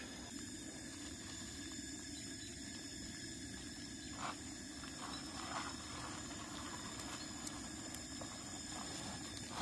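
Steady low rumbling background noise, with a couple of faint soft sounds about four and five and a half seconds in.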